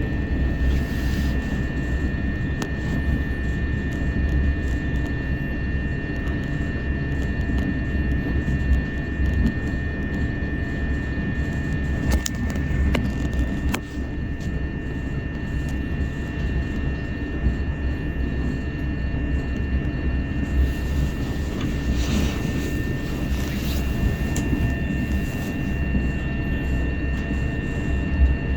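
Electric passenger train running at speed, heard from inside the carriage: a steady low rumble of wheels on track with a steady high-pitched whine over it, and a few brief clicks about halfway through.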